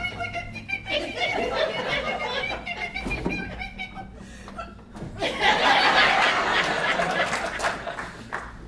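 Audience laughing, swelling louder about five and a half seconds in.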